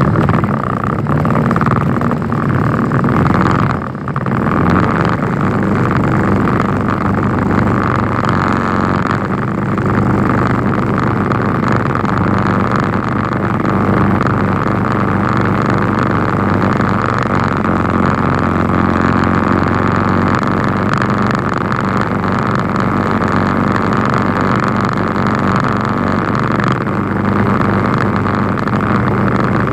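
Vehicle engine running steadily at low speed as it drives through street floodwater, with the steady rush of water around it. The sound dips briefly about four seconds in.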